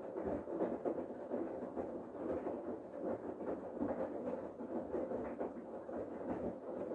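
Bosch Serie 8 front-loading washing machine tumbling a load during its main wash: the drum turns and laundry and water slosh and splash, a dense, uneven churning.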